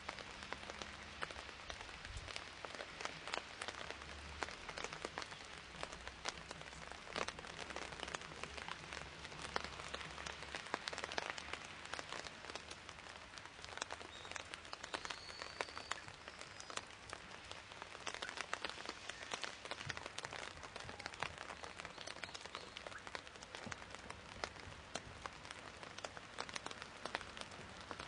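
Steady rain falling, with many sharp drop impacts close by.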